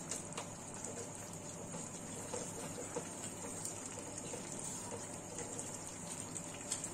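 Chicken korma in yoghurt gravy sizzling steadily in a nonstick kadai, while a wooden spatula gently stirs it, making soft scrapes and faint ticks against the pan.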